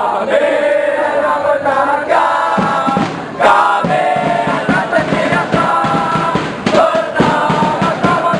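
Crowd of Kelantan football supporters singing a chant together, with a steady drum beat joining about three and a half seconds in.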